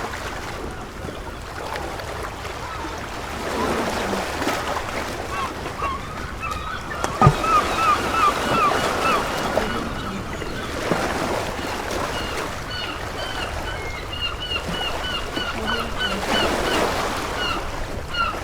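Ocean surf washing steadily on a beach, swelling and easing every several seconds. Over it, gulls call in quick runs of short repeated cries, one run near the middle and another through the last third. A single sharp click comes about seven seconds in.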